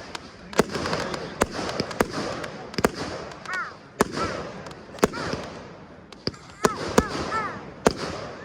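Fireworks display: a rapid run of sharp bangs, one or two a second, over steady crackling.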